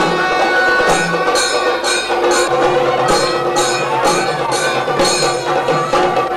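Temple festival percussion ensemble: drums and small hand cymbals clashing in a steady beat about three times a second, over a held wind-instrument melody.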